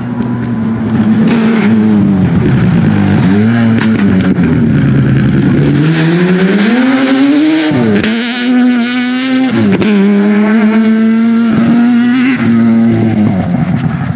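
Mazda RX-7 Group B rally car's naturally aspirated 13B rotary engine driven hard past at speed, loud throughout. The revs climb and fall several times, with sudden short drops in the second half.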